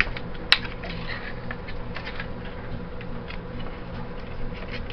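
Hands handling a strip of Flexwatt heat tape and its cord: one sharp click about half a second in, then faint scattered ticks and rustles, over a steady low hum.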